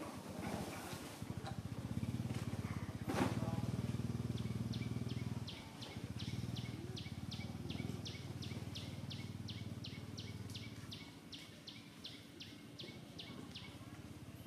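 Outdoor ambience: a low droning hum, loudest early and fading out about eleven seconds in, under a steady run of short high chirps repeated nearly three times a second from about four seconds in until near the end.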